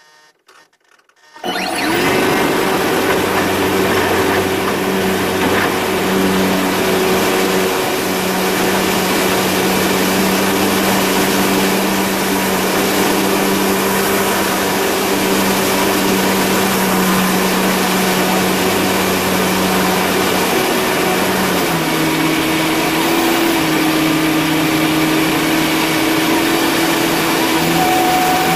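The engine and propeller of a remotely piloted Pawnee aircraft, heard from inside its fuselage, running at steady high power through the take-off run and climb. The sound cuts in suddenly about a second and a half in, and its pitch drops slightly about 22 s in.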